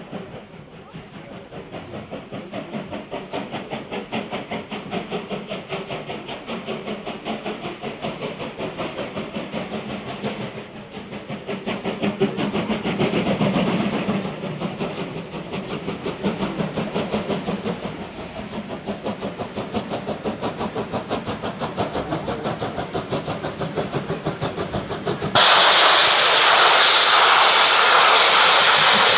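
Steam locomotives working hard up the grade, their exhaust chuffing in a steady rhythm of about two beats a second over the rumble of the carriages on the rails. About 25 seconds in a much louder steady rushing hiss sets in abruptly and covers the chuffing.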